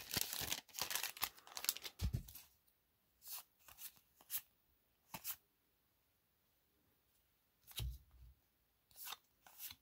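A foil booster-pack wrapper being torn open and crinkled for about two seconds, followed by a few brief, soft sounds of trading cards being handled and slid against each other.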